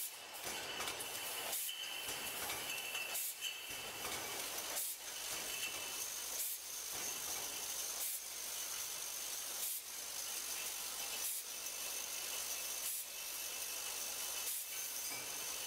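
2019 661 EPV automatic beer-bottling microblock running, with a steady hiss and machine noise. A regular knock comes about every 1.6 seconds as the machine cycles.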